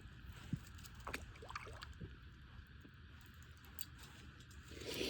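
Faint, steady low wind rumble on the microphone, with light water sounds and small scattered ticks; a short rush of noise comes near the end.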